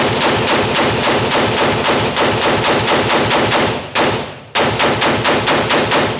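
AR-15 rifle fired in a rapid string of shots, about five a second, with a brief pause about four seconds in and then another quick run that stops near the end.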